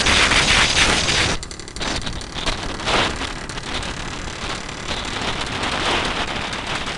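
Wind buffeting the microphone on a moving camera, over the running engine of an IŽ-56, a single-cylinder two-stroke motorcycle. The rush is loudest at first and eases a little over a second in.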